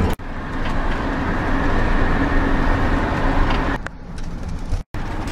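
Steady rumble and road noise of a moving vehicle, cut off abruptly twice: a brief dropout just after the start and a moment of silence near the end.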